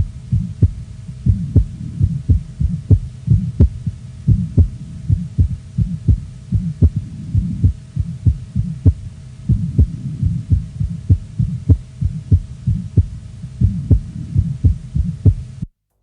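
Stethoscope recording of a child's heart with Still's murmur: regular paired heart sounds with a quiet, low, musical vibratory hum between them. The recording cuts off suddenly near the end.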